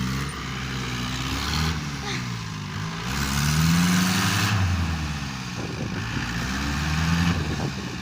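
Excavator's diesel engine running under hydraulic load, its pitch rising and falling several times as the machine works. It is loudest about halfway through, with a rushing hiss on top.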